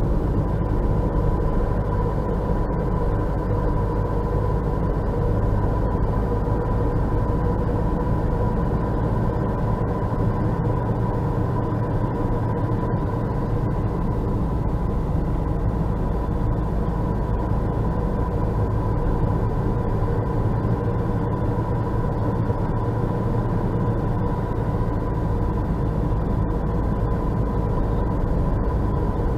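Steady in-cabin road and tyre noise from a car driving at about 40 km/h on a snow-covered road, a continuous low rumble with a faint steady high tone running through it.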